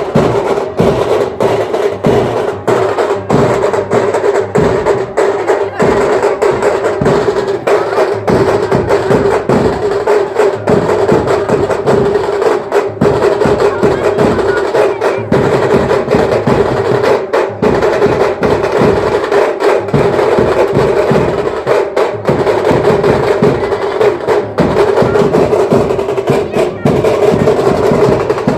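Indian band music driven by fast, dense timki drumming, sharp strokes in rapid succession over a steady held note.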